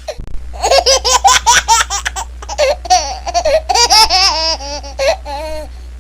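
A baby laughing: a quick run of short, high-pitched laughs, then slower, longer laughs that fall in pitch over the last few seconds.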